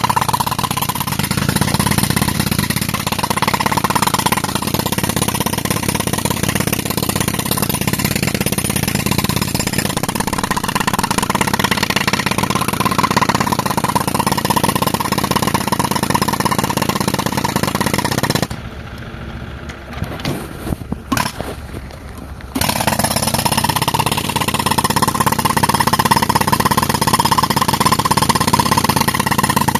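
Pneumatic rock breaker run off a tractor's air compressor, hammering rapidly and continuously into rock. It stops for about four seconds roughly two-thirds of the way in, then starts again.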